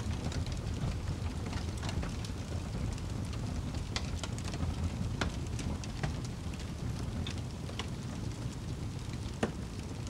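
Fire burning in a fireplace: a steady low rumble with scattered crackles and pops. The sharpest pop comes a little before the end.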